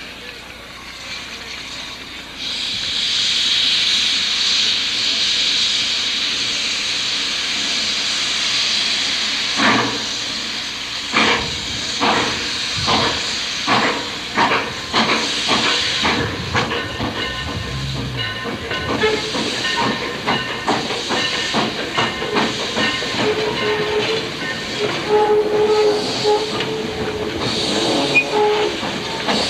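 Steam locomotive Reno, a 4-4-0, letting off a loud, steady hiss of steam, then puffing exhaust beats as it gets under way, the beats coming quicker. After that it runs on with a busier clatter.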